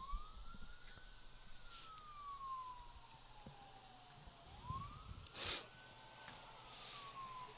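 Distant emergency-vehicle siren on a slow wail, its pitch rising, holding briefly and falling about every four and a half seconds. A car passes close by, with a short rush of noise about five and a half seconds in.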